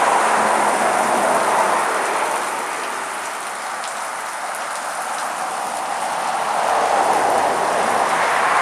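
Waterfall rushing: steady falling water that eases a little in the middle and swells again near the end.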